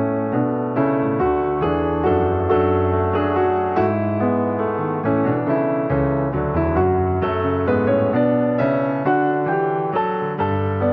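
Background piano music: a soft, steady run of struck piano notes.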